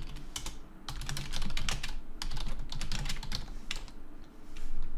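Typing on a computer keyboard: a quick, irregular run of key clicks as a line of code is entered.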